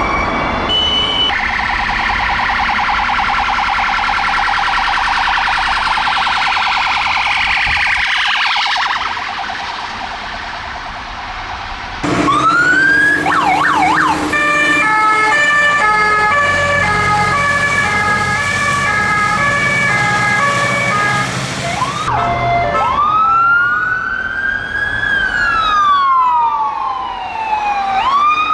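UK emergency vehicle sirens in turn. First an ambulance siren cycling rapidly. About twelve seconds in, a Scania fire engine's siren sweeps up a few times and then alternates between two pitches, with its engine running low underneath. From about twenty-two seconds, a police car siren wails in slow rising and falling sweeps.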